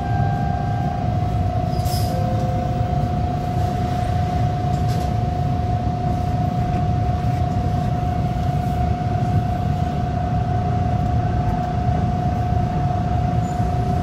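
TTC Bombardier T1 subway train leaving a station platform and moving into the tunnel: a steady low rumble with one constant tone held throughout.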